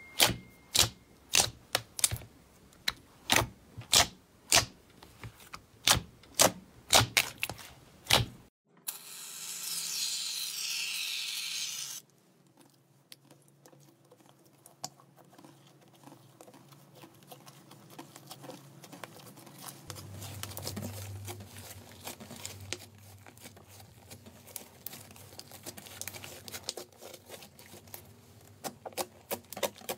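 Glossy white slime being poked and squeezed by hand, giving sharp pops and clicks about twice a second for the first eight seconds. A brief hiss follows, then quieter soft crackling as a clear blue slime is handled, with a few clicks again near the end.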